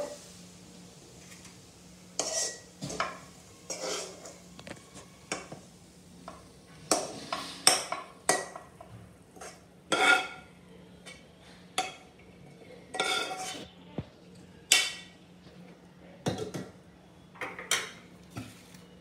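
Stainless steel pots, lids and a spoon clinking and scraping in irregular knocks as cookware is handled, with a faint steady low hum underneath.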